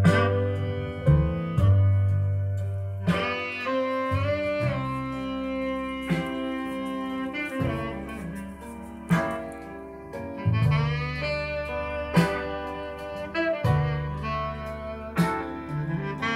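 Instrumental music played back through a TDA2003 12-volt mono amplifier and an ACR C-810-DFH speaker in a wooden cabinet: a bending melody line over deep bass notes each held for a second or two.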